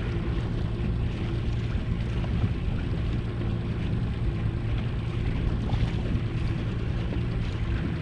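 Small boat's motor running steadily, a low hum of constant pitch over an even wash of wind and water noise.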